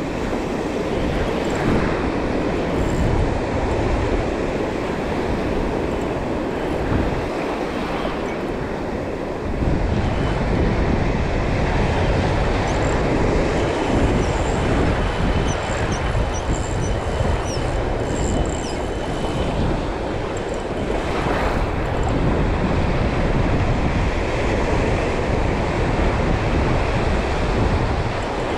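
Wind buffeting the microphone over breaking surf: a steady rushing noise with a heavy low rumble that grows louder about ten seconds in.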